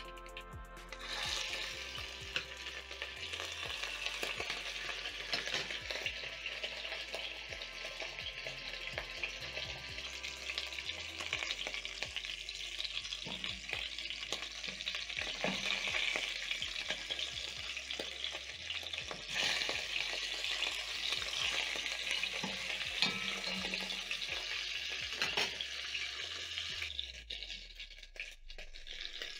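Beef short ribs searing in hot cooking oil over high heat in a heavy-bottomed pot: a steady sizzle that starts about a second in as the meat goes in. Now and then the metal tongs click as pieces are placed and turned.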